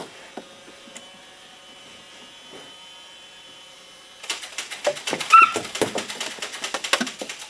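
Faint steady room hum with a couple of isolated clicks, then, about four seconds in, a dense run of rapid clicking and rattling that continues to the end.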